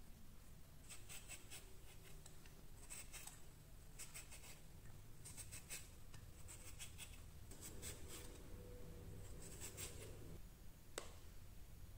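Handheld steel julienne shredder rasping down a peeled raw potato in quick, faint strokes, coming in short runs of two or three. A single sharp click near the end.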